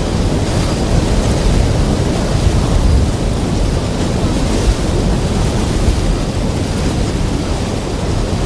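Extremely loud wind, a dense steady rush heaviest in the deep low end, going on without a break.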